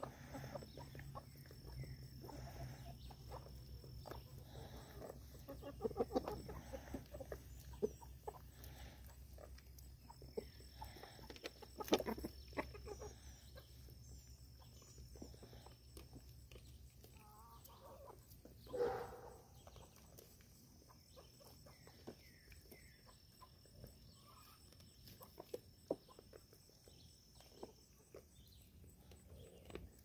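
Chickens clucking quietly while hens and goats peck and eat grain from a wooden trough, with scattered light taps and knocks. There is one short, louder call about two-thirds of the way through.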